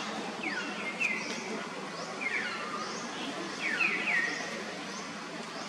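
Birds calling outdoors: short chirps that sweep quickly down in pitch, coming singly and in pairs several times, over a steady background hiss.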